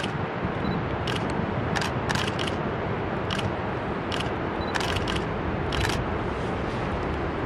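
Steady rushing roar of a large waterfall, with camera shutter clicks every second or so, some single and some in quick runs.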